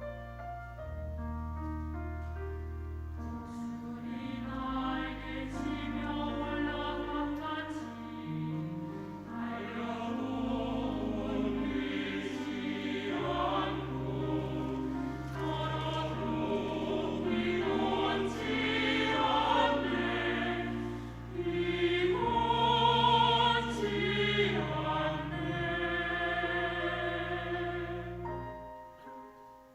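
Church choir singing an anthem in parts over sustained low organ or keyboard bass notes, building in loudness through the middle and later part, and dying away just before the end.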